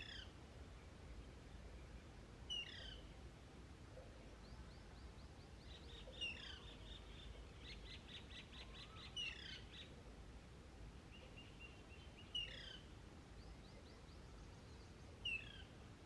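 Female Alexandrine parakeet begging her mate for food. She gives short, harsh, falling calls about every three seconds, six in all, with a fast rattling chatter between some of them.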